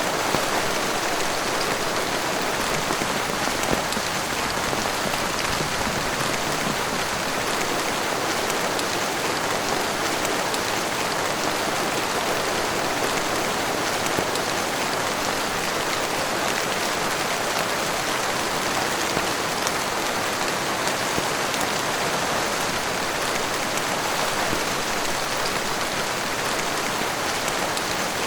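Heavy rain falling steadily, a constant dense hiss with a few individual drops standing out now and then.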